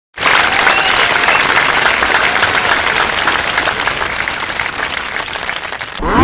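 Crowd applause sound effect: many hands clapping, starting suddenly after silence and running steadily, easing off just before the end.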